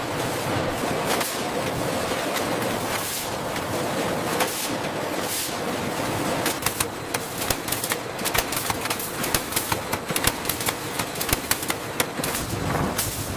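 Automated foil-packaging machinery running: a steady mechanical hiss with clacking, which turns into a fast, irregular clatter of sharp clicks about halfway through.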